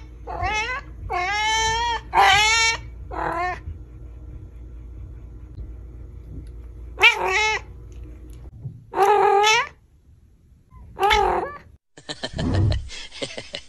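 Domestic cat meowing over and over, about seven drawn-out meows, four close together, then a pause of a few seconds, then three more spaced out. In the last two seconds a different, noisier sound takes over.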